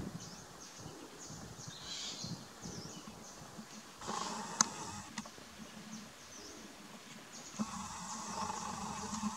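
Small birds give short, high chirps again and again in the background. About four seconds in and again near the end, a louder, steadier sound comes in for a second or two, with a sharp click between them.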